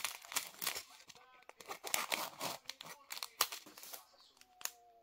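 Small plastic packets of diamond-painting drills crinkling as they are handled, with scissors snipping through the plastic strip, in a run of short, crisp rustles and snips.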